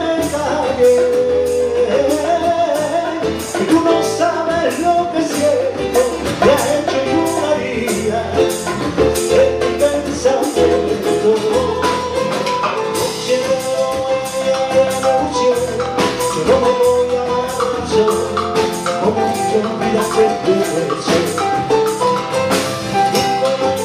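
A small live band plays a song: electronic keyboard and a drum kit with cymbals keeping a steady beat, with some singing.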